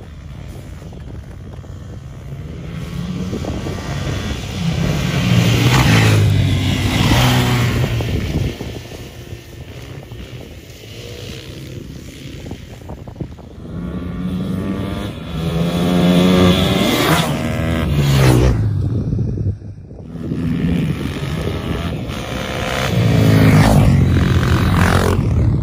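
Motorcycles racing on a frozen-lake ice track: engines revving hard and rising in pitch through the gears as they come past, then fading. This happens about three times, each pass louder than the idle stretches between.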